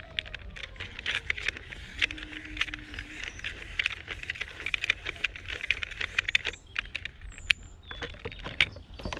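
Hands and fingernails working at the plastic ball housing of a Dyson DC41 vacuum cleaner, a rapid run of small plastic clicks and taps as the catch is pressed and pried at.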